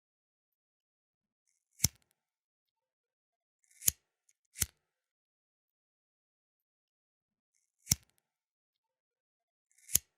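Flint lighter being clicked: five short, sharp metallic clicks about two seconds apart, two of them close together near the middle.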